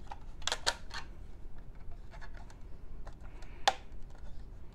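Light clicks and taps of a plastic horn strobe and its mounting plate being handled, with three sharp clicks close together about half a second in and a louder single click near the end.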